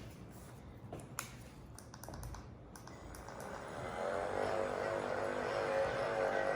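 A few light clicks and taps, then background music fades in over the second half and becomes the loudest sound.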